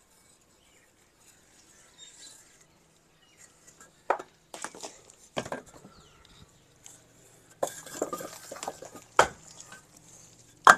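Fired clay bricks knocking and clinking against one another as they are pulled out of a brick wall and set down. After a few quiet seconds comes a run of sharp, separate knocks, the loudest at the very end.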